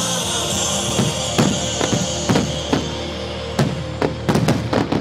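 Aerial firework shells bursting in a string of sharp bangs at irregular intervals, several in quick succession near the end, over music with sustained tones.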